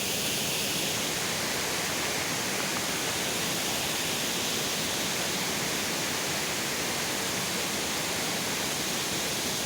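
Mountain stream swollen by days of rain, rushing water running steadily.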